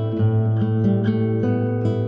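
Background music: plucked acoustic guitar notes played at a steady pace.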